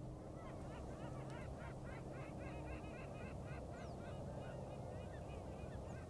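A flock of waterbirds calling: many short, overlapping calls, several a second, beginning just after the start and keeping on throughout, faint over a low background rumble.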